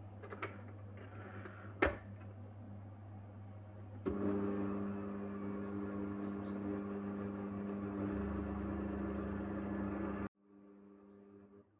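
Electric stand mixer motor switching on about four seconds in and running steadily as its flat beater mixes flour into a batter, then cutting off abruptly near the end, followed by a short, quieter run. One sharp click comes a couple of seconds in.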